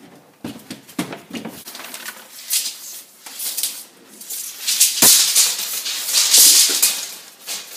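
Tape measure's steel blade being pulled out along a wall and let back in, rattling and scraping with scattered clicks, loudest in the second half.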